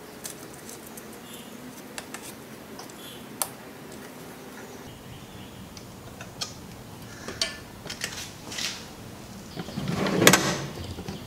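Scattered light metallic clicks and taps of a hex wrench working on a bicycle rear derailleur. About ten seconds in comes a louder rattle as a metal toolbox drawer slides open, its contents clattering.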